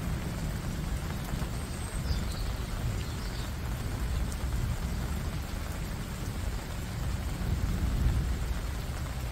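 Heavy rain falling steadily, with a deep low rumble underneath that swells near the end.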